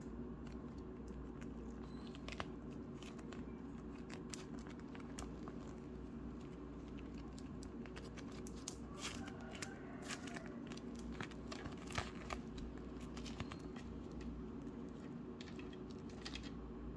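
Feathery Play-Doh slime being squeezed and pulled apart by hand, making irregular sticky crackles, pops and tearing sounds. A steady low hum runs beneath.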